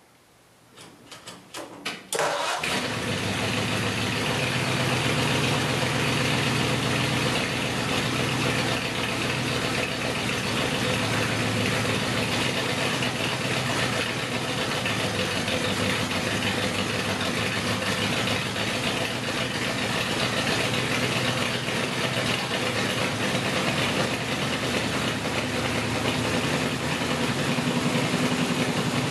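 Ford flathead V8 in a Model A hot rod coupe starting up: a few faint clicks, then it catches about two seconds in and settles into a steady idle.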